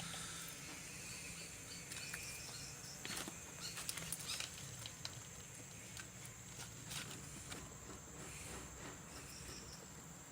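Faint steady high-pitched insect chirring, with a cluster of clicks and taps about three to four and a half seconds in and another near seven seconds.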